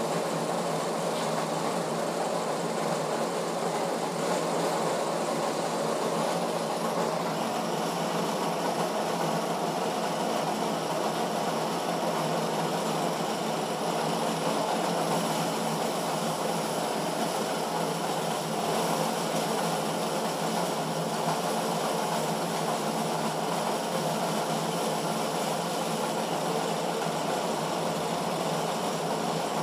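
Diesel injection pump test bench running steadily, its drive spinning an Isuzu 4JB1 injection pump during calibration.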